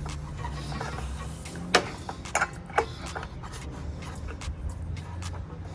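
A few sharp clicks and knocks, irregular and spread a second or so apart, from the circular saw's fittings being handled and tightened while a new blade is refitted, over a low steady hum.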